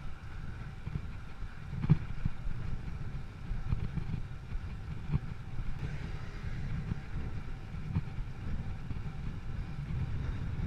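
Wind buffeting the microphone: a steady low rumble with irregular gusts, the strongest about two seconds in.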